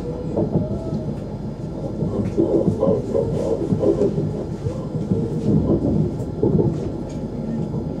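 ES1 "Lastochka" (Siemens Desiro RUS) electric multiple unit running along the line: a steady rumble of wheels on rails, heard from inside the passenger car.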